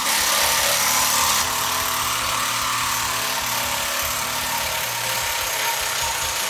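Cordless impact driver hammering continuously under load, a loud, dense rattle of rapid impacts.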